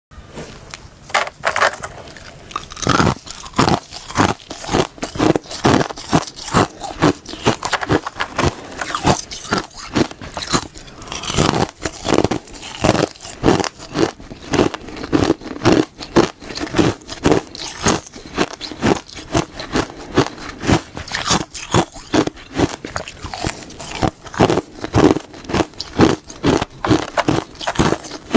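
Close-miked ASMR crunching: someone biting and chewing something hard and brittle, a steady run of crisp crunches about one to two a second.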